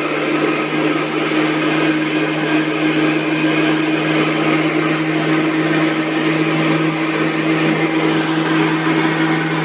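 Homemade PVC-pipe vacuum cleaner with a 775 DC motor and fan running steadily: a constant low motor tone over a rush of air.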